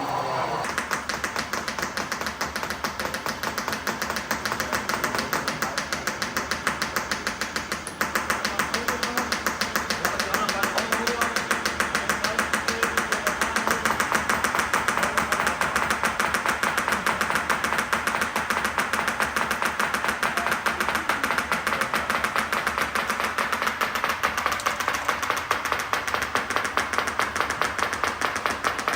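Rapid, steady mechanical clattering from a small machine, several clicks a second, getting louder about eight seconds in.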